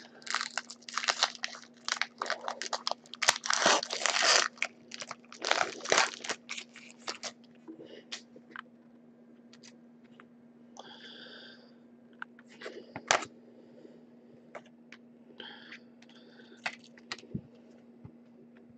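Foil trading-card pack wrapper crinkling and tearing as it is opened, a dense crackle for about the first seven seconds. After that come quieter handling noises and a few soft clicks as the cards are taken out, over a steady low hum.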